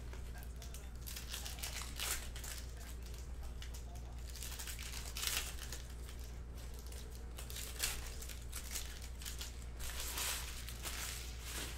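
Foil trading-card pack wrappers crinkling and tearing open as packs of football cards are opened, in several short rustles a few seconds apart, over a steady low hum.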